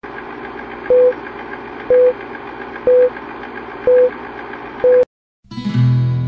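Old-film countdown leader sound effect: a film projector's steady whirr and flutter with a short beep once a second, five beeps in all, cutting off abruptly about five seconds in. Acoustic guitar music starts just after.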